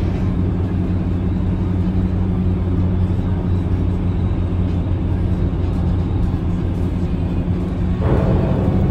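Vehicle driving at steady speed: a constant low engine drone with road noise. A brighter rushing noise joins about eight seconds in.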